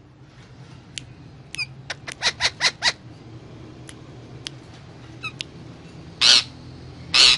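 Indian ringneck parakeet calling: scattered short clicks and chirps, a quick run of about six calls around two seconds in, then two loud harsh squawks about a second apart near the end.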